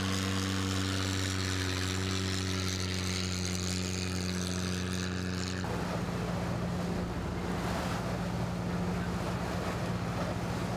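Boat engine running at a steady pitch. About halfway through the sound changes abruptly to a louder rushing noise over the same engine hum.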